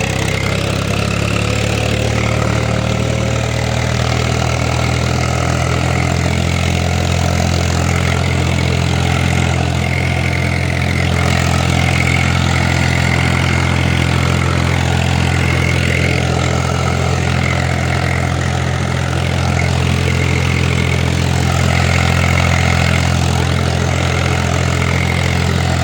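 An engine running steadily at a constant, idle-like speed, with a low even hum that does not change.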